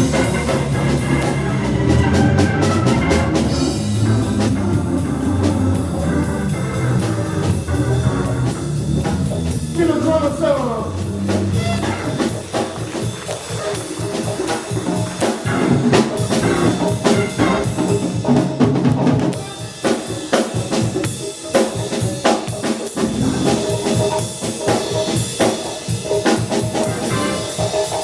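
Live band playing an instrumental number, with a drum kit keeping time under pitched instruments; a quick falling run of notes about ten seconds in.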